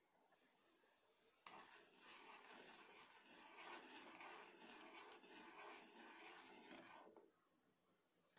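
A steel spoon stirring sugar and water in a nonstick saucepan, scraping the undissolved sugar granules across the bottom of the pan. The scratchy stirring starts about a second and a half in and stops about a second before the end.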